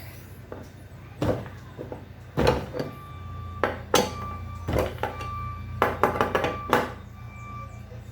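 Tools clicking and knocking against the metal parts of a washing machine's base as the screws holding the tray under the gearbox are undone. There are a dozen or so separate sharp knocks, with a steady low hum underneath from about three seconds in.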